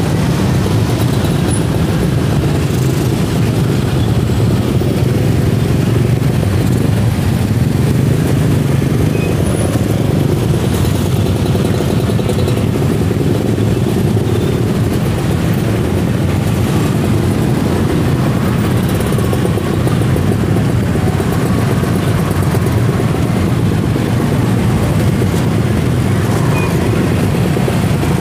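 Steady din of dense, crawling traffic in a jam: many engines running together, with no single vehicle standing out.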